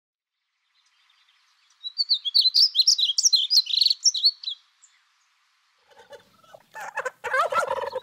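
Wild birds: a rapid, high twittering song for a few seconds, then, from about six seconds in, a lower rattling call that grows louder.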